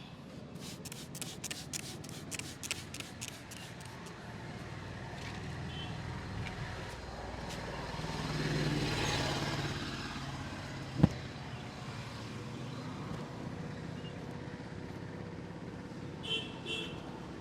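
A road vehicle passes, swelling and fading through the middle. There is a quick run of small clicks or taps in the first few seconds, and one sharp crack a little after the middle, the loudest sound here.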